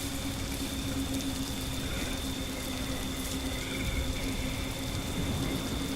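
Steady, even noise like light rain over a low rumble, with a constant faint hum and a thin high whine; faint short wavering tones come about two seconds in and again near four seconds.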